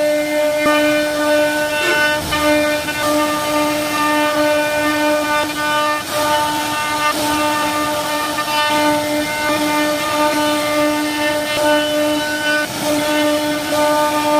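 CNC router spindle whining at a steady, unchanging pitch as its bit cuts into a wooden panel, with the rough noise of the wood being milled underneath.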